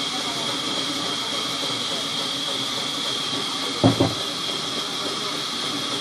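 Large vertical band saw running with a steady high whine and hiss as a log is fed through the blade. About four seconds in, a short loud double knock stands out.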